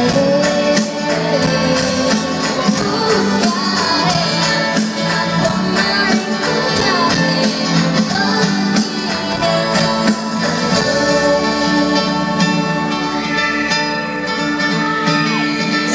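Live pop band playing a ballad with acoustic guitar, bass, drums and keyboard at a steady beat, recorded from among the audience.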